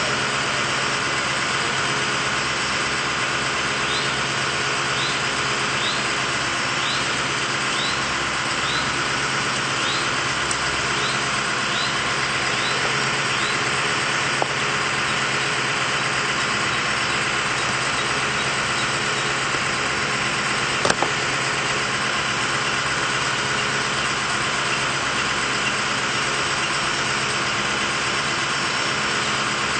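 Bucket truck's engine idling steadily, with a series of about a dozen short rising chirps, roughly one a second, partway through, and a couple of sharp knocks later on.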